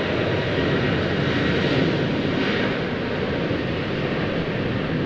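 Airbus A320-216's CFM56 jet engines running at taxi power as the airliner rolls past: a steady rush with a faint high whine.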